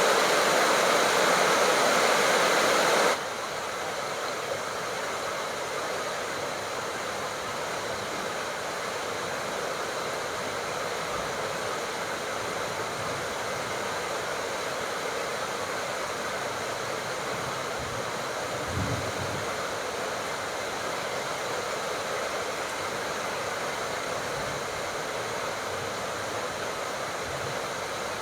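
Steady tropical rain falling. It is louder for the first three seconds, then drops suddenly to a lower even level, and there is one brief low thud about 19 seconds in.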